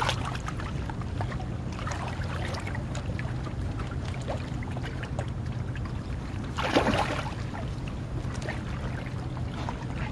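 Shallow water splashing and sloshing around a person's legs and a large inflatable pool float as the float is pushed through the water, with one louder splash about seven seconds in, over a steady low rumble.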